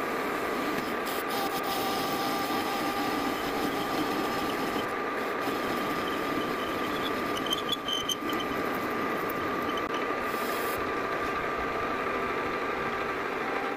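Metal lathe running with a parting tool cutting into the spinning metal workpiece, a steady machine noise with a thin whine through it and a few brief squeaks from the cut about halfway through.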